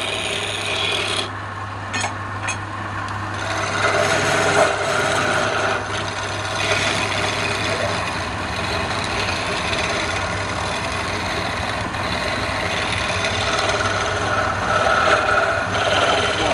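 Flat scraper held on a wood lathe's tool rest cutting the spinning wood, a continuous scraping rasp as shavings come off. A low steady hum sits under it for the first half.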